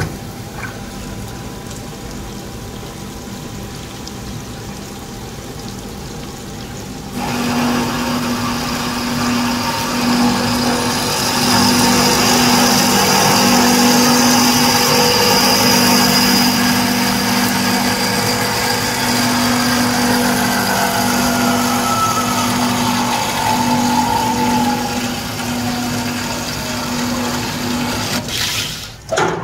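Fully automatic hydraulic bandsaw running: after a click, the machine hums steadily, and about seven seconds in the sound jumps up as the blade starts cutting a metal pipe under a flood of coolant. Through the cut a whine slowly falls in pitch, and the sound drops near the end as the cut finishes.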